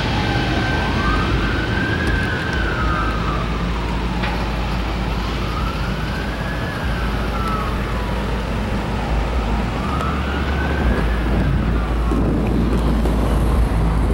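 Fire truck siren sounding a slow wail, rising and falling about three times, over a steady low rumble.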